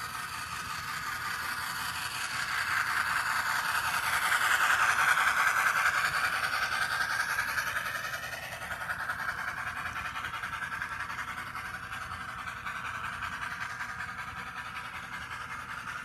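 Model train running on the layout track, a steady rapid whirring and clatter that swells as the train passes close by, loudest about five seconds in, then settles back to a steady running sound.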